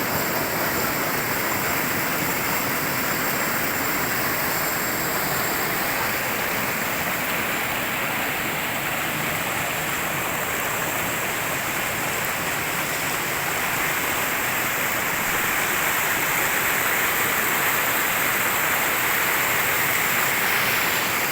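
Flowing stream water rushing steadily close by, a constant hiss-like wash that gets a little louder about fifteen seconds in.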